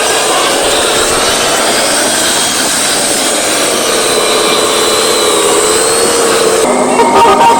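A motor whining steadily under a dense hiss, its pitch slowly rising and falling. Music cuts in abruptly near the end.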